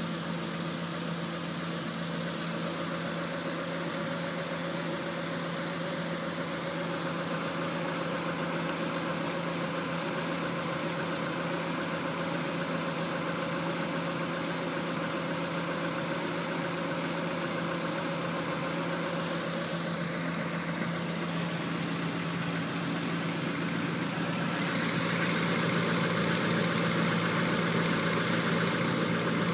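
1994 Honda Accord's four-cylinder engine idling roughly with a shake, from a misfire on cylinder 4 whose spark plug is dry. It gets a little louder near the end.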